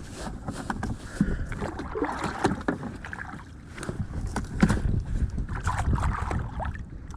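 Sounds of a plastic fishing kayak at sea: water sloshing and splashing against the hull over a low wind rumble, with frequent short knocks and clicks of gear being handled on the boat.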